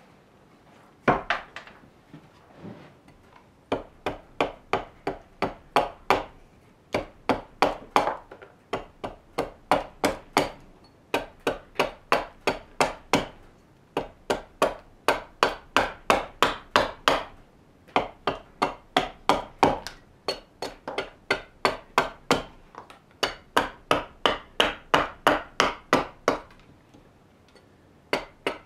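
Hatchet chopping into a raw birch blank held upright on a wooden chopping stump, roughing out the shape of a kuksa: quick runs of sharp chops, about three a second, with short pauses between the runs.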